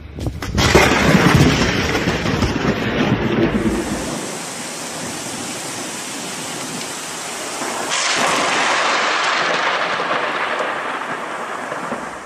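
Thunder from a close lightning strike: a sudden sharp crack about half a second in, then a heavy crackling rumble that stops abruptly about four seconds in. A steady hiss of rain follows, growing louder about eight seconds in and cutting off sharply near the end.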